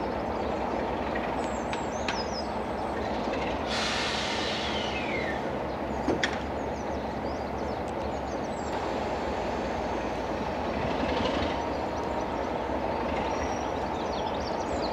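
Class 33 diesel locomotive's Sulzer eight-cylinder engine running steadily as it approaches slowly with a train of coaches. A sharp knock comes about six seconds in.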